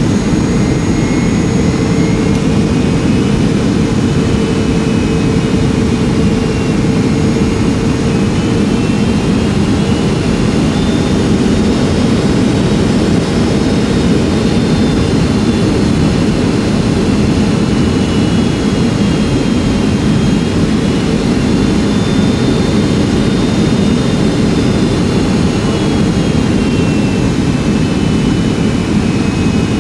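Boeing 757-200 airliner in flight heard from inside the cabin: a steady, loud roar of jet engines and airflow, with thin high engine whine tones slowly drifting up and down in pitch.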